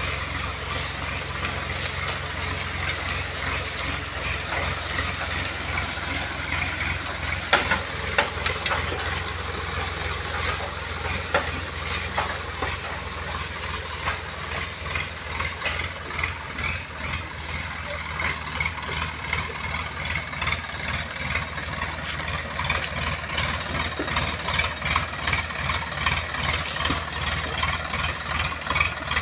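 Massey Ferguson 1035 DI tractor's three-cylinder diesel engine running steadily under load while pulling a disc harrow, with the harrow's discs scraping and rattling through dry soil. A couple of sharp knocks come about eight seconds in.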